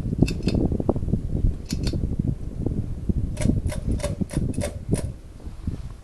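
Hunter ceiling fan running, its moving air buffeting the microphone in a gusty low rumble. Sharp clicks come over it: two pairs in the first two seconds, then a quick run of about eight in the middle. The rumble eases off near the end.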